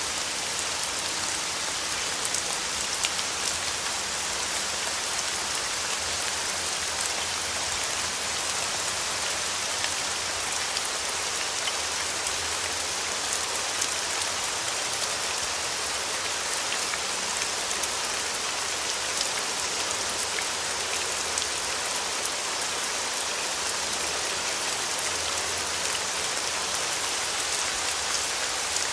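Steady rain: an even hiss with faint scattered ticks of drops.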